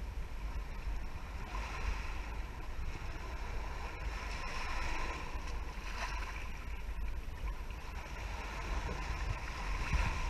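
Small sea waves washing up over the sand and against a rock, surging every few seconds. Wind rumbles low on the microphone underneath.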